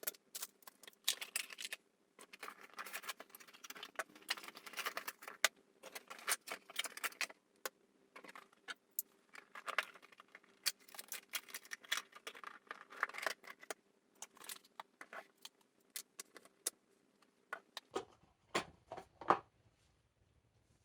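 Rapid, irregular clicking and rattling of small hard plastic parts being handled, with a few separate knocks near the end.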